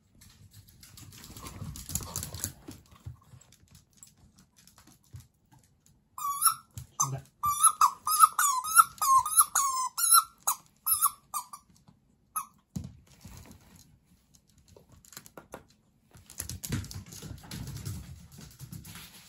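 A Jack Russell Terrier puppy biting a squeaky toy ball, a quick run of high squeaks lasting about five seconds from around six seconds in, with one more squeak shortly after. Before and after, the puppy's paws patter and scuffle on the wooden floor as it runs.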